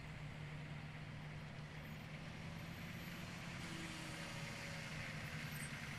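Humvee engines running at low speed as the trucks crawl over rough ground, a steady low drone that grows slightly louder in the second half.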